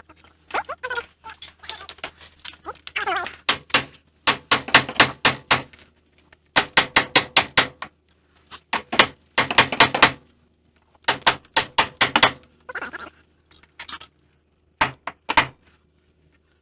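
A big hammer striking a chisel, metal on metal, to drive out a seized wheel hub assembly. The blows come in quick runs of several strikes with short pauses between.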